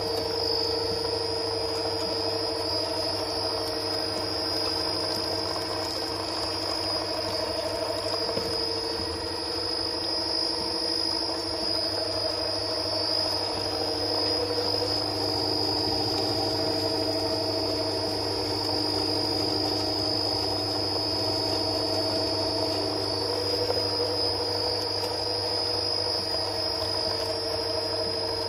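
Dikmaksan DMS 2500 screw oil press running steadily under load while pressing terebinth seeds: a continuous machine hum from the motor and drive with a steady high-pitched whine over it.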